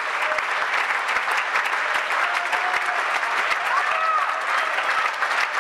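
Theatre audience applauding performers at a curtain call: dense, steady clapping, with a few faint voices in the crowd.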